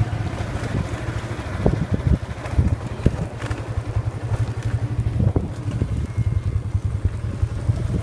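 Small motorbike engine running steadily at low speed, with wind on the microphone and several sharp knocks during the ride.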